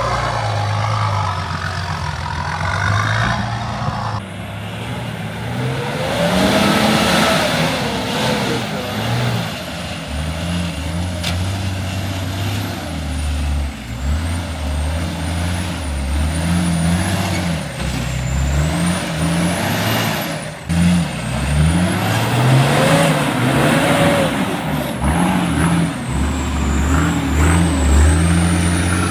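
Four-wheel-drive engine revving up and down repeatedly under load off-road, with an abrupt change in the sound about four seconds in.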